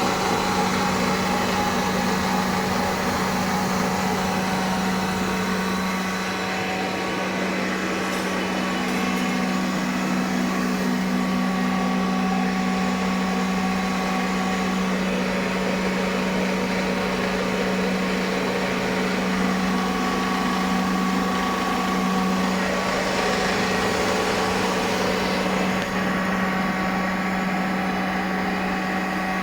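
Rotary screw air compressor running steadily: a constant strong hum, with fainter higher tones that come and go above it.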